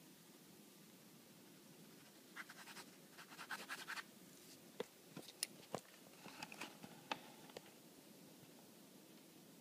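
Faint pen scratching on paper in quick short strokes while sketching, starting about two seconds in, with a few sharp ticks between about five and seven seconds in.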